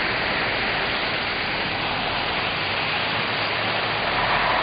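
Steady, even rushing hiss of a rain-soaked highway scene: water and wet road noise, with no single engine or voice standing out.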